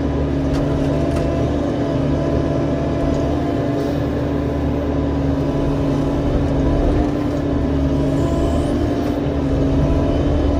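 Excavator's diesel engine running steadily, with a constant pitched hum over the engine noise.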